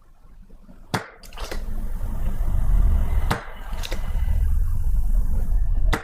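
Desoldering the battery terminals: pairs of sharp clicks about half a second apart, three times, with a low rumbling noise between them.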